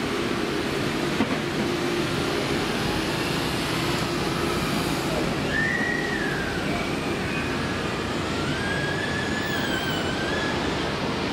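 Steady jet roar of a twin-engine airliner on final approach with its landing gear down. Thin, wavering whistles sound over it from about halfway through.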